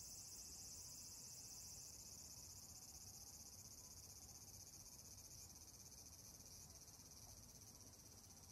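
Faint, steady high-pitched chorus of insects trilling continuously, easing slightly toward the end, over a faint low background rumble.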